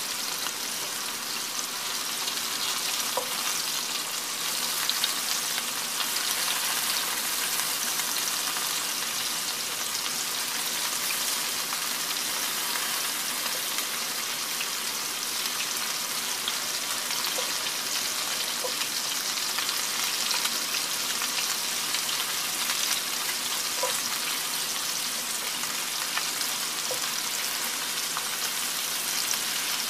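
Meatballs frying in oil in a cast-iron skillet: a steady crackling sizzle, with a wooden spatula turning them now and then.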